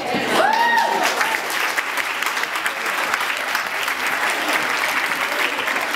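Audience applauding steadily after a speech, a dense crackle of many hands clapping, with a short rising-and-falling tone near the start.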